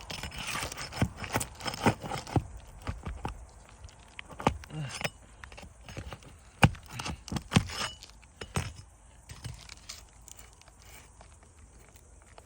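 Irregular sharp clicks, clinks and scrapes of a hand tool working under old, stiff asphalt shingles to unseal them and get at the nails, loudest about two-thirds of the way through.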